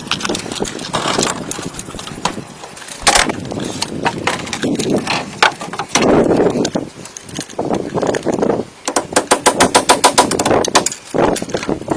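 Woodworking hand tools on hardwood: irregular knocks and taps, with a fast run of sharp clicks near the end.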